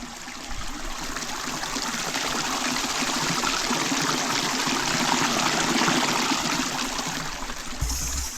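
Small waterfall: water running and splashing in a steady rush.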